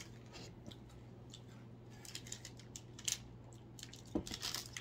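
Faint crinkling and light clicks of a plastic snack wrapper being handled, getting busier near the end, over a steady low hum.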